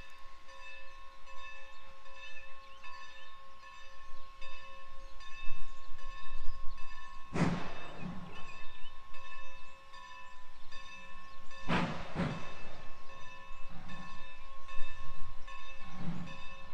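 Grade-crossing signal bell ringing steadily in a fast repeat, with a few heavy exhaust chuffs from N&W #475, a steam locomotive working in the distance, heard about halfway in, again about two-thirds in, and near the end.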